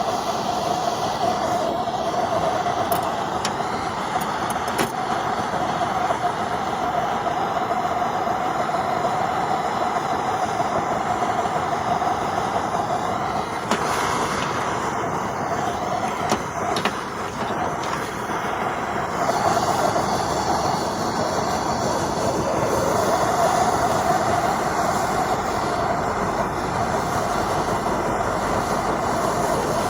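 Blowtorch flame burning steadily and without a break, heating a wire-stripper part to burn out the built-up gunk from stripped wire.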